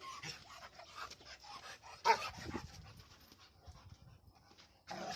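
Dog panting hard after bite work, with one short bark about two seconds in.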